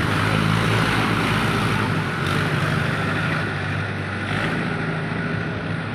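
Heavy diesel machinery engine running steadily at an even pitch.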